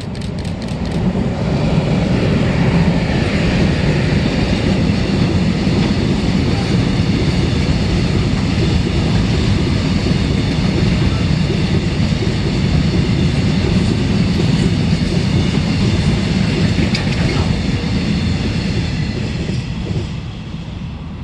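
Freight train passing on the rails: a quick run of clicks at the start, then a loud, steady rumble of wheels and wagons that builds over the first two seconds, holds, and fades near the end.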